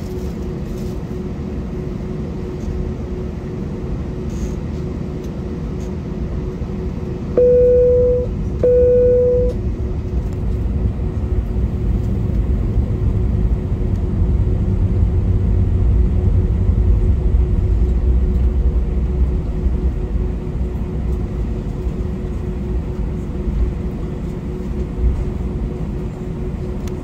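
Cabin noise inside a British Airways Airbus A320: a steady low rumble with a constant hum, the rumble swelling for several seconds past the middle. About seven seconds in, the cabin chime sounds twice, two short tones of the same pitch.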